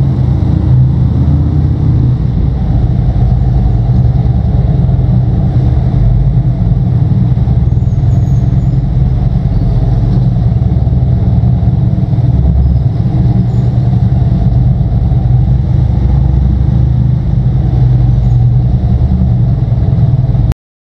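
Cruiser motorcycle's V-twin engine running steadily under way, a loud deep rumble with no big revs. It cuts off suddenly near the end.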